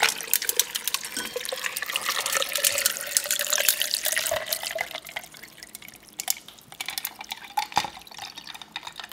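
Water pouring into a glass or bottle with ice in it, the pitch rising steadily as it fills; the pour stops about five seconds in, leaving scattered clicks of ice settling.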